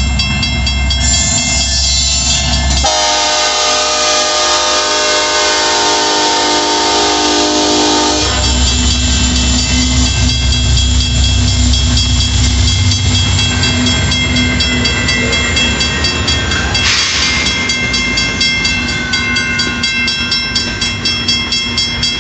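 Union Pacific freight train passing a grade crossing. A long diesel locomotive horn blast of about five seconds sounds a few seconds in, then the locomotives run past heavily, followed by freight cars with a rhythmic clickety-clack of wheels over the rail joints. The crossing signal bell rings throughout.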